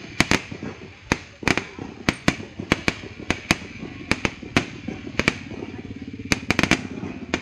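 Fireworks going off: rapid, irregular sharp bangs and cracks, several a second, with no let-up.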